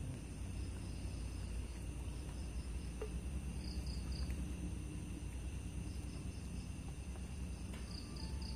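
Night insect chorus, crickets trilling in steady high tones, with a short three-note high chirp coming back every few seconds, over a low steady rumble.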